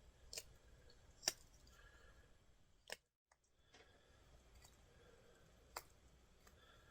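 Near silence with four faint, sharp clicks spaced out over several seconds.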